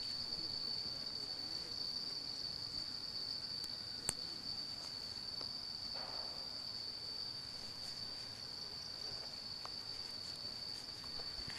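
Insects chirring steadily in the woods, one continuous high-pitched drone, with a single small click about four seconds in.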